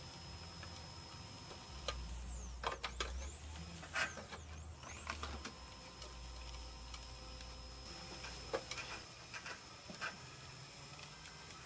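Homemade concrete 3D printer running as it extrudes a layer: a steady low motor hum with scattered clicks and ticks, and a few brief rising and falling whines a few seconds in.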